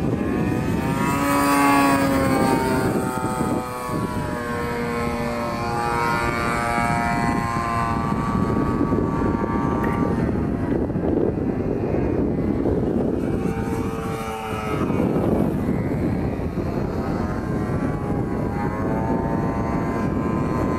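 Christen Eagle aerobatic biplane flying overhead, its engine and propeller running with a drone that rises and falls in pitch as it manoeuvres, briefly fading about four seconds in and again around fourteen seconds.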